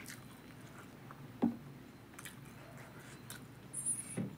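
Quiet handling sounds of a boiled egg being picked up by hand from a ceramic plate: a few faint clicks, with a light knock about a second and a half in and a couple more near the end.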